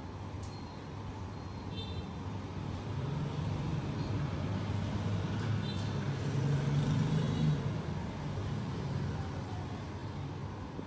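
Low engine rumble of a passing road vehicle, swelling over a few seconds and then easing off, with a couple of brief high-pitched beeps.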